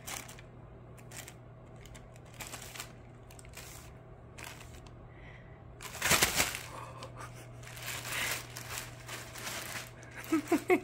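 Plastic carrier bag rustling and crinkling in irregular bursts as a cat pushes into it and a hand moves it, loudest about six seconds in.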